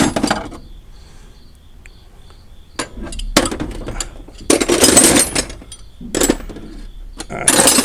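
Metal hand wrenches clinking and clattering against each other as they are picked through and handled, several spells of rattling with short pauses between.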